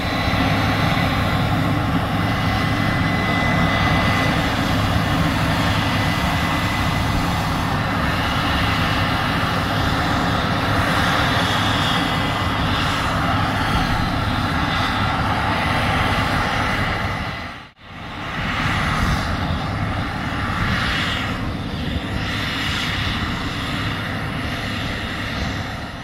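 Steady machine noise, an even hum and hiss with a faint high whine, that drops out briefly about two-thirds of the way through and comes back.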